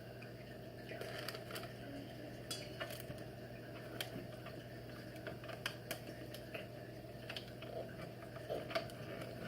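Scattered light clicks and clinks of kitchen utensils and dishes being handled, over a steady low hum.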